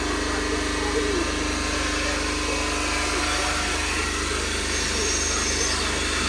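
Milking machine running steadily, a constant motor hum with a fine, even pulsing underneath.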